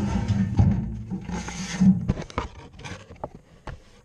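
Rubbing and scraping on the camera as a hand grabs it and pulls it out of a metal mailbox, loudest in the first two seconds, then a few light knocks and clicks.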